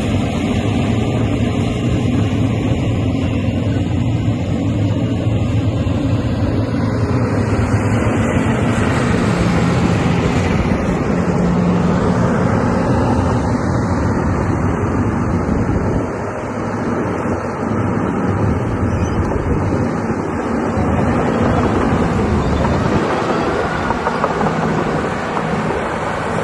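Excavator's diesel engine running, a steady loud hum whose level shifts now and then.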